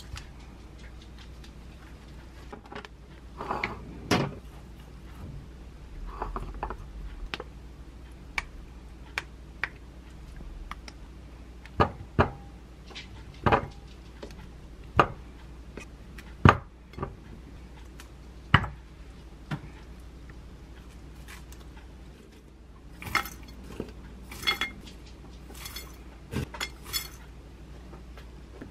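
Scattered knocks and clinks of kitchenware: a wooden spoon against a ceramic bowl as strawberries are cut into yogurt. Near the end come brighter, ringing clinks from a scoop in a glass jar of granola.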